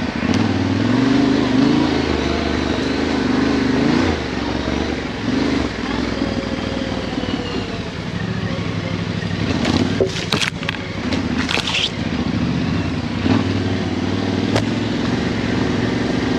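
Yamaha Ténéré 700's parallel-twin engine running at low trail speed off-road, its note rising and falling with the throttle. A cluster of sharp knocks and rattles comes about ten seconds in.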